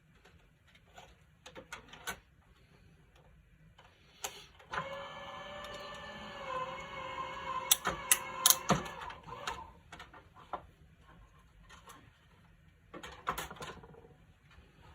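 Electric die-cutting machine running for about five seconds, its motor a steady whirring hum that shifts slightly in pitch midway, with three sharp clicks near the end of the run. Light clicks of plates and paper being handled before and after.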